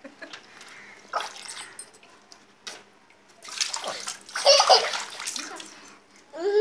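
Water splashing and sloshing in a metal basin as a baby slaps the water and a squeezed rubber toy squirts into it. A short splash comes about a second in, and the loudest, longest splashing comes from about three and a half to five seconds in.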